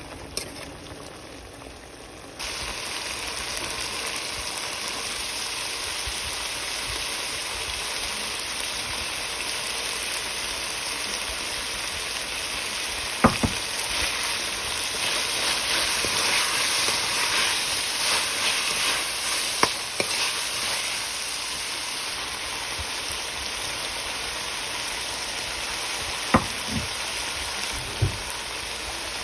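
Chicken cooking in a pot, sizzling steadily and growing louder about two seconds in, with a few sharp knocks scattered through it.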